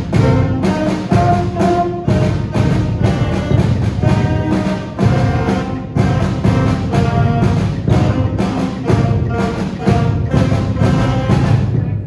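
School band playing a piece with a steady, strongly accented beat, started from a spoken count-off; the music stops abruptly at the end.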